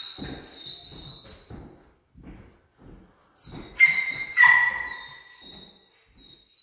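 A dog barking twice in quick succession about four seconds in, over steady footsteps on a laminate floor.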